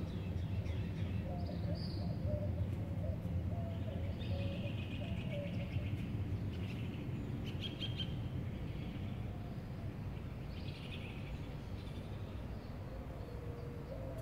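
Birds calling outdoors: short bursts of high chirps a few seconds apart, and a lower wavering call in the first half and again near the end. A steady low rumble of outdoor background noise runs underneath.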